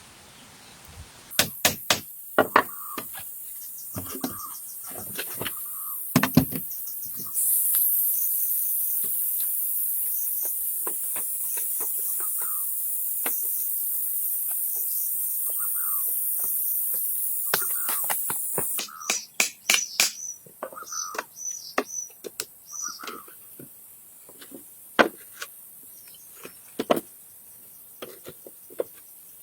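Irregular knocks and taps of hand work with wood, over a high steady insect drone that swells in the middle and cuts off about two-thirds of the way through; short bird chirps come and go.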